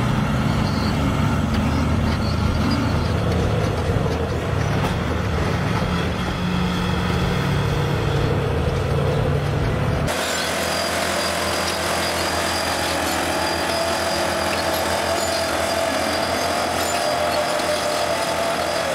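Large Komatsu crawler bulldozer's diesel engine running under load. About ten seconds in the sound changes abruptly: the deep engine tone drops away, leaving a thinner, noisier mechanical sound.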